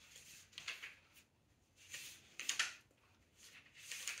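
Pages of a Bible being turned by hand: faint paper rustles in three or four short bursts.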